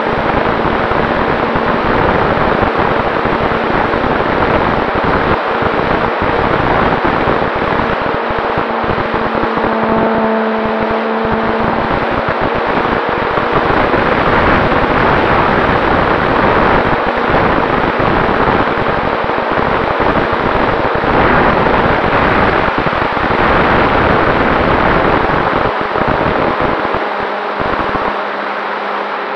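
Onboard sound of a radio-controlled model Cessna 188 in flight: a loud, steady rush of airflow buffeting the on-board camera's microphone, with a faint steady hum from the motor and spinning propeller.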